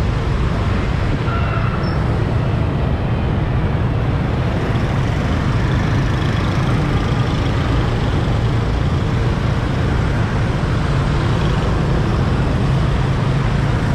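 Steady rumble of a moving motorbike in dense city traffic: the rider's own engine and road noise blend with the engines of the scooters, cars and vans alongside.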